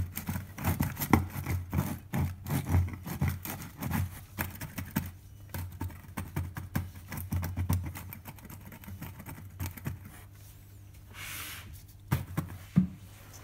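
Woofer cone pushed by hand, its burnt voice coil scraping in the magnet gap in short, irregular scratchy rubs with low thumps from the moving cone. The rubs are frequent at first and thin out, with a couple of sharp knocks near the end. A scraping voice coil is the sign of a burnt, failed driver.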